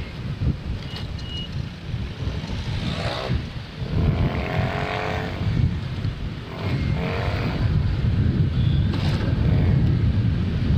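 Wind buffeting the microphone and road noise on a moving motorcycle in traffic, with engine tones of nearby motorbikes rising and falling near the middle.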